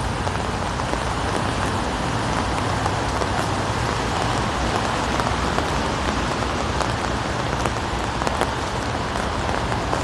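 Steady rain pattering on a surface close by, with scattered light ticks of single drops.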